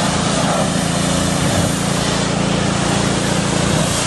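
Pressure washer running steadily: the machine's motor hums under the hiss of the water jet spraying against a car's body panels.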